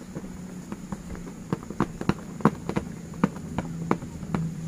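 Cat clawing at a dark upright board, her claws making a string of sharp, irregular clicks and scratches, several a second, with the loudest about halfway through.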